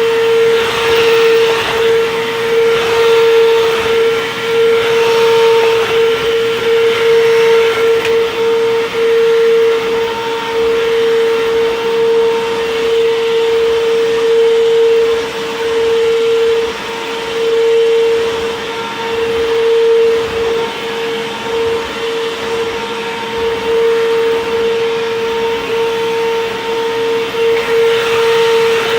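Bissell CleanView Helix upright vacuum cleaner running over a rug, its motor giving a steady high whine that swells and dips slightly. It has no brushroll fitted, which the owner says makes it sound a little weird.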